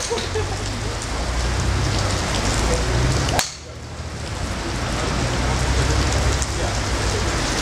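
Steady hiss of rain, and about three and a half seconds in a single sharp crack of a driver striking a golf ball off a tee.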